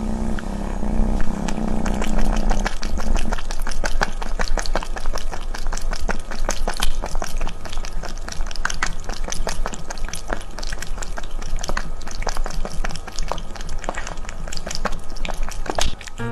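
A cat lapping water from a drinking glass into a close microphone: quick, irregular wet clicks, several a second. A steady low hum runs under the first few seconds and then stops.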